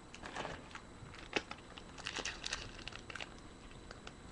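A trading-card pack's wrapper being worked open, faint scattered crinkles and crackles with a denser cluster about two seconds in. The pack is a hard one to open.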